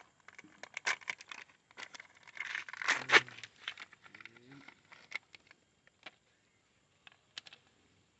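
Dense crinkling and sharp clicks of small plastic parts being handled, most likely the new headlight bulb holder and its wiring. The clicks are busy for about four seconds, with one loud snap near the middle, then thin out to a few isolated clicks.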